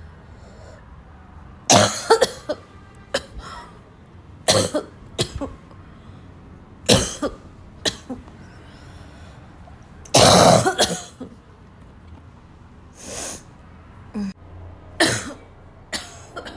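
A person coughing in harsh, barking coughs, one or two at a time every second or so, with a longer, louder coughing bout about ten seconds in.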